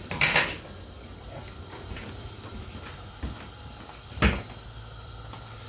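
A short clatter just after the start, then a single sharp knock about four seconds in, over a low steady hum: household handling knocks such as a cupboard door or an object set down.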